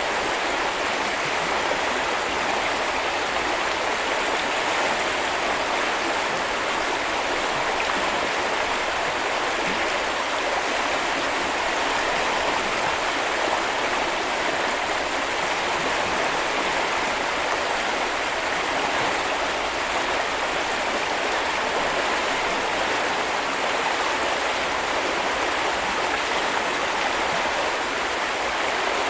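Small river flowing steadily over stones: a continuous rushing and babbling of water.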